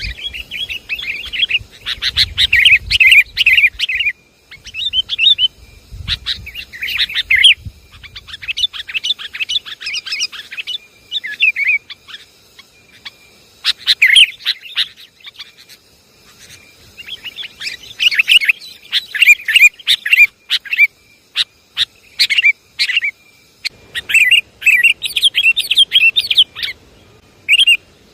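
Sooty-headed bulbuls calling: clusters of quick, bubbly chattering notes lasting a few seconds each, broken by short pauses, as in a recording played to lure bulbuls.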